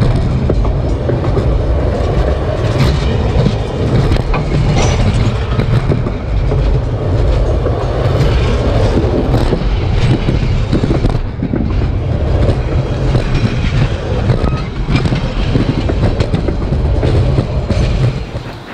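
Railroad cars rolling directly overhead: a loud, steady rumble of steel wheels on the rails with irregular clicks and knocks, stopping abruptly near the end.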